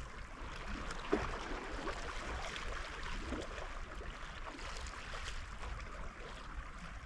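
Steady outdoor ambience, a soft even hiss, with a few faint taps and knocks, the clearest about a second in.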